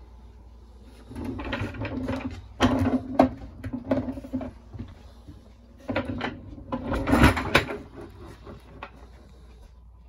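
Plywood dolly on swivel casters being handled and moved, with rumbling and knocking in two stretches: the first starts about a second in, the second around six seconds in.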